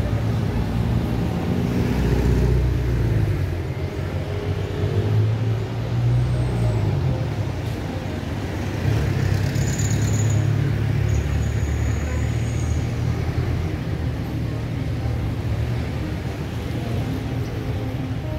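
Urban road traffic: car and vehicle engines running past in a steady low rumble that swells and fades as vehicles go by.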